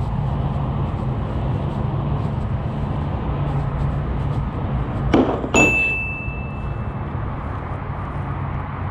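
A steady low hum, broken about five seconds in by a dull knock and then a sharp metallic clink that rings on one high note for about a second and a half.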